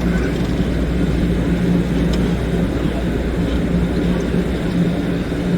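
A diesel passenger train running steadily: a loud, constant low drone with an even hum, typical of the locomotive idling at the platform.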